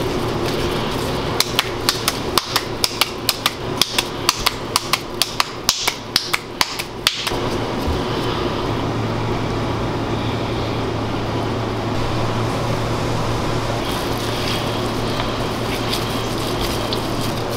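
A ball of ground beef slapped hard between gloved hands to press out the air while a burger patty is formed: a quick run of sharp slaps, about three a second, that stops a little under halfway through. A steady hum of a kitchen fan runs underneath.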